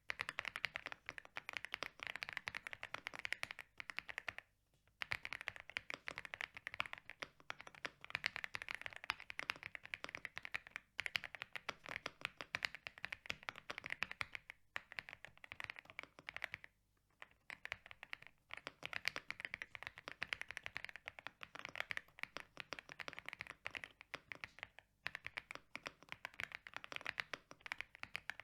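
Continuous typing on an AULA F75 Max mechanical keyboard with a polycarbonate plate and Poron foam: a dense run of key clacks broken by a few brief pauses, with a thocky, creamy sound.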